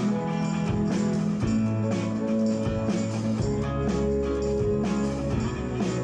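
Live worship band playing a song through a PA system, with guitars strumming chords over sustained low notes.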